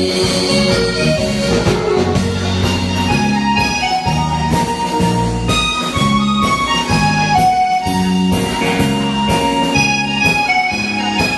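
Live band playing an instrumental break with no singing: a reedy, accordion-like keyboard melody over a steady drum-kit beat.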